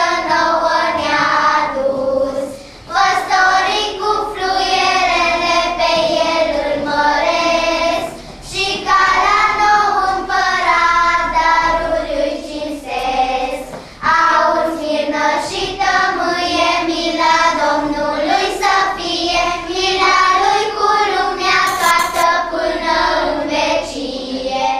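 A group of children singing a song together, in phrases with short breaks for breath.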